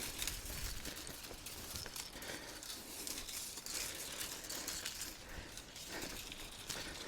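Faint, irregular rustling and light clicking of fence wire being handled in long grass.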